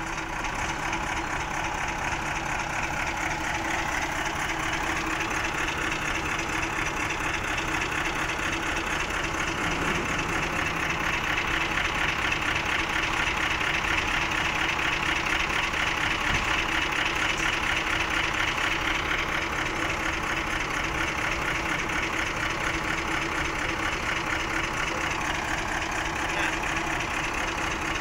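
Heavy truck engine idling steadily with an even, fine running rhythm.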